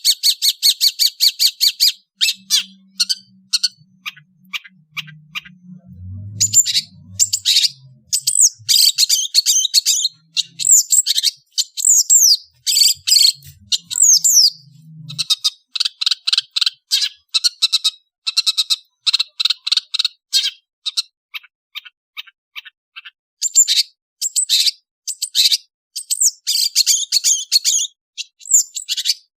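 Long-tailed shrike singing: fast runs of harsh, chattering notes mixed with short falling whistles, with a brief pause past the middle.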